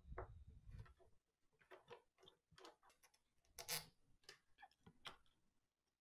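Faint, scattered small ticks and clicks of a screwdriver backing the screw out of the paddle's anodized aluminium cover and of the cover being worked loose, with one louder click about three and a half seconds in.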